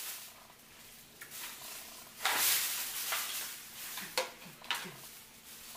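Thin plastic bag rustling and crinkling as it is handled and pulled over a glass bowl of leftover seafood. The loudest rustle comes about two seconds in, with sharper crinkles later.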